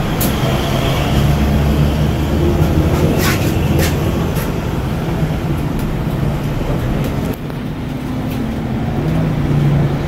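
Cabin noise of an electric bus on the move: a steady low road rumble and hum. A few brief clicks or rattles come about three to four seconds in.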